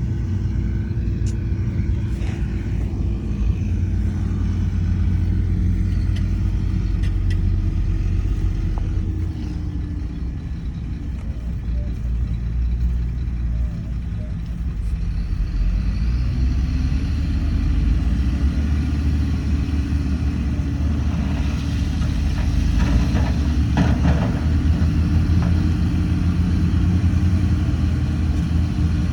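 Heavy diesel engine of earthmoving machinery running steadily. Its pitch drops about ten seconds in and rises back a few seconds later. There is a spell of rattling about three-quarters of the way through.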